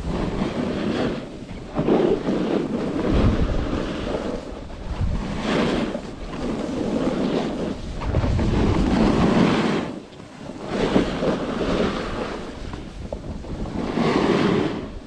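Skis sliding and scraping over groomed snow, the hiss swelling and fading every few seconds with each turn, while wind buffets the camera's microphone.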